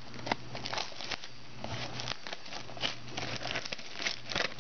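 Clear plastic shrink-wrap being torn and pulled off a cardboard trading card box, crinkling in a run of irregular crackles.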